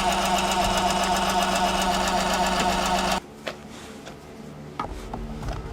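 Power-folding door mirror motor of an MH23S Suzuki Wagon R grinding with a rapid, even 'gagagaga' rattle as the mirror fails to fold automatically. It cuts off suddenly about three seconds in, leaving a few faint clicks.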